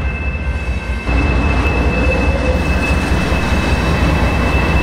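Norfolk Southern GE C44-9W diesel locomotive passing close by with a freight train, its engine running steadily with rail and wheel noise. The sound gets suddenly louder about a second in, with a thin steady high squeal over it.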